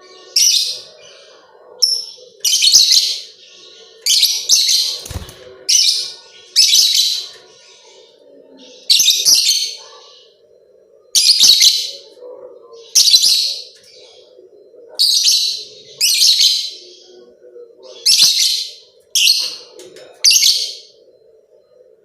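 Lovebird giving loud, shrill chattering calls in short bursts, one every second or two.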